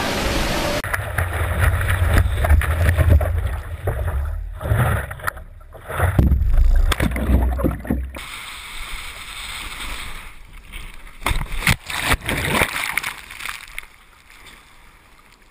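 Churning, rushing water with a heavy low rumble of water and wind buffeting a camera's microphone, followed later by a quick run of splashes before it fades.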